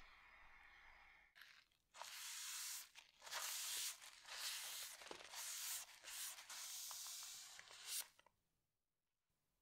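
A cloth rubbing linseed oil varnish into a wooden knife handle: a series of dry, hissy wiping strokes that start about two seconds in and stop shortly before the end.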